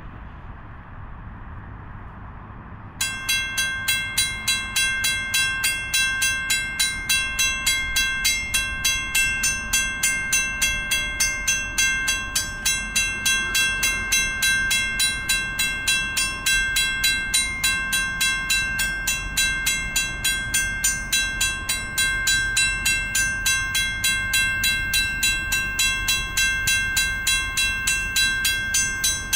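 Railway level-crossing warning bell starting abruptly about three seconds in and ringing in rapid, evenly repeated strikes as the crossing signals activate, over a low steady background rumble.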